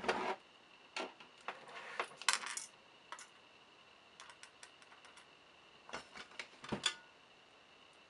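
Light metallic clicks and clinks of an electric screwdriver's bit and small screws against the lock's metal housing, in a few short clusters about one to three seconds in and again around six to seven seconds.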